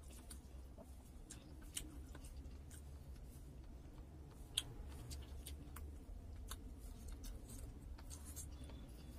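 Quiet eating by hand: scattered faint clicks and small sharp sounds as chicken and rice are picked apart on the plate and eaten. The sharpest click comes about halfway through, over a steady low hum.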